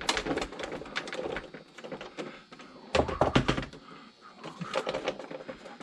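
Scattered clicks and knocks of screws and small parts being handled as a homemade teleprompter is taken apart, with a louder cluster of knocks about three seconds in.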